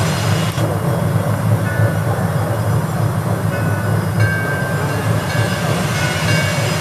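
Water-fountain jets splashing into a pool: a steady, loud rush of water with a strong low rumble underneath.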